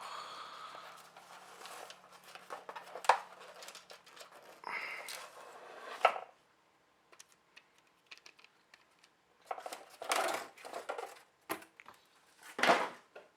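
Graphics card packaging being handled and pulled apart: rustling and scraping with two sharp clicks, then a pause and a few short separate rustles.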